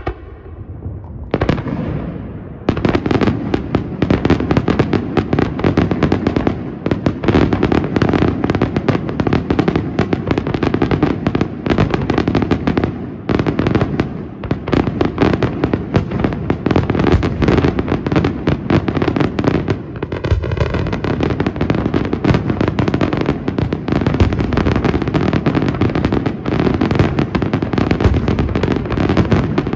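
Aerial fireworks display firing a dense barrage: shell bursts and crackling reports come many per second with hardly a pause, starting about a second and a half in.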